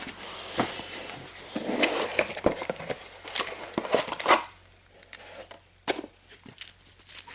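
Handling noise of a tool and its packaging: rustling with light clicks and knocks for about four seconds, then only a few scattered clicks.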